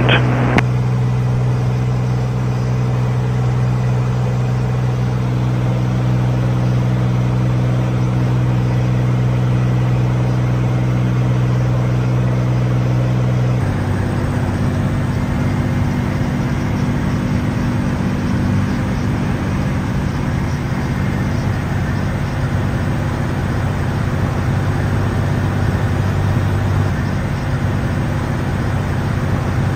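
Cirrus SR22's six-cylinder piston engine and propeller droning steadily, heard inside the cabin in flight. About halfway through, the drone drops to a lower, rougher hum.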